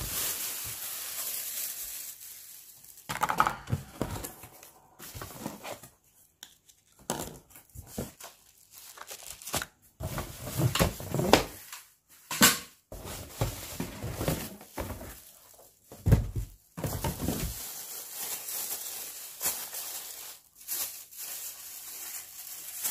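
Plastic wrapping crinkling and rustling in irregular bursts, with scrapes and a few sharp knocks from a cardboard box and fan parts, as a boxed pedestal fan is unpacked.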